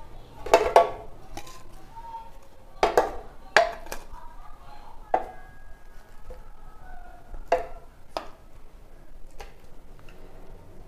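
Metal kitchen tongs clacking and knocking against a blender jar as roasted tomatoes are dropped in. About seven sharp clinks come at irregular intervals, the loudest near the start and about three seconds in.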